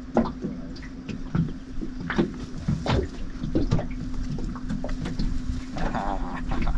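Scattered clicks and knocks as a freshly caught hairtail is handled and unhooked in a small boat, over a steady low hum.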